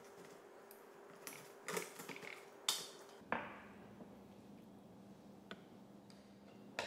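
Knife cutting chicken thighs through the bone on a wooden cutting board: a handful of faint sharp knocks and cracks, bunched in the first half, then a few isolated clicks.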